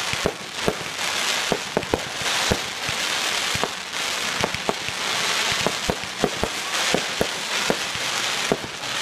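Fireworks display: a continuous crackling hiss with many sharp, irregular bangs of shells going off, roughly three a second.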